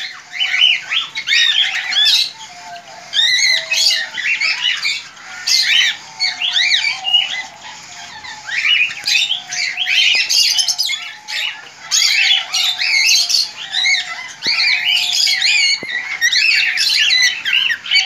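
Caged aviary birds, cockatiels among them, chattering and squawking without a break in many overlapping short chirps and calls.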